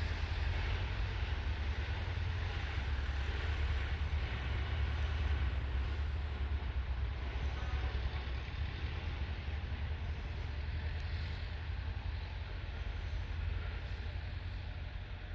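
Freight train rolling past with a steady low rumble that slowly fades.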